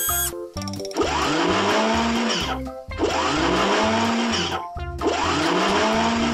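A whirring, motor-like sound with a pitch that rises and falls, repeated three times for about two seconds each, over background music.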